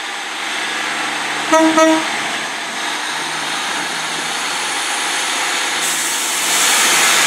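Class 150 diesel multiple unit pulling out of the station, its underfloor diesel engines running under load as the coaches roll past. About a second and a half in, the driver gives two short toots on the horn. The running gets louder near the end.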